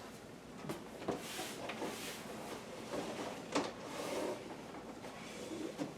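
Beer cans and cardboard packaging being handled: a few light knocks and clunks, about four in all, over soft rustling.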